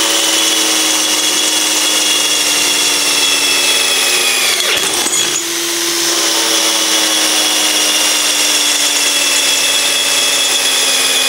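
ES Industrial LH216K cordless drill running a 5 mm metal bit through a thin-walled steel square tube in drilling mode: a steady motor whine that sags slightly in pitch under load and cuts through easily. The whine stops briefly about five seconds in and starts again.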